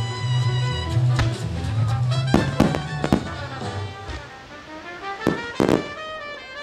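A starmine of aerial fireworks shells bursting in a string of sharp booms, heard close up, the loudest around the middle and near the end. Music accompanying the display plays throughout.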